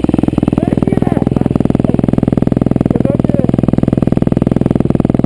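Motocross bike engine idling, a fast, even beat of firing pulses that holds steady throughout.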